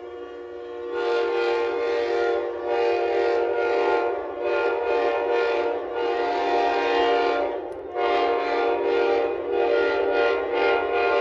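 Commuter train's air horn sounding a long, wavering chord as the train pulls away, breaking off briefly near eight seconds in before blowing again.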